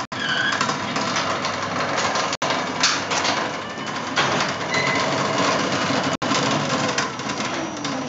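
Dominator garage door opener running, its motor and drive lifting a sectional garage door open: a steady, dense mechanical noise, broken by three very short gaps.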